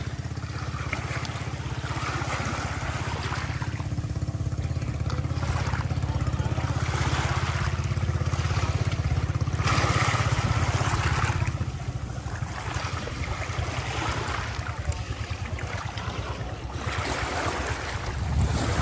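Small waves washing over shore rocks and a driftwood log, the splashing swelling and fading every few seconds. Underneath, the steady low drone of a boat engine out on the water.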